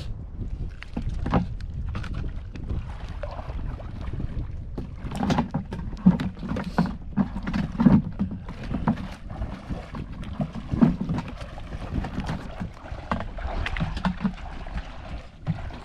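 Shallow seawater splashing and sloshing irregularly, with many short knocks and swishes.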